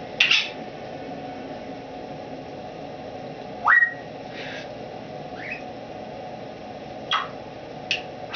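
Timneh African grey parrot giving scattered short whistles and chirps. The loudest is a quick rising whistle about halfway through, and a few brief calls come near the start and the end. They are the tentative sounds of a wild-caught bird still attempting to find her voice.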